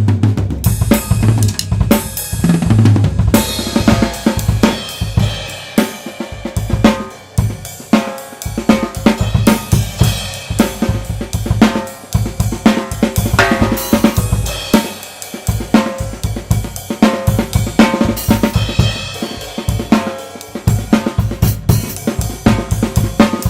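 Tama Swingstar drum kit with Meinl cymbals played in a steady groove: kick drum, snare, hi-hat and cymbals struck many times a second, recorded through a Blue Yeti microphone.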